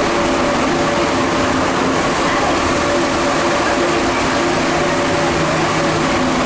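Santiago Metro Line 2 rubber-tyred train running through a tunnel, heard from inside the car: a steady, loud rumble and hiss with a few faint humming tones from the running gear.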